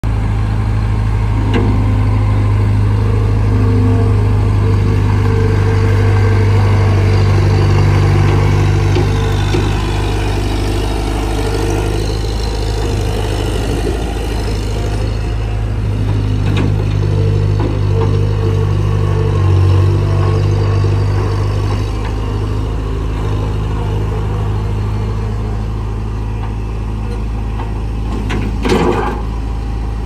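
Bobcat 843 skid steer's diesel engine running under throttle, its note rising and easing as the machine drives and works its lift arms. A single sharp clank comes near the end.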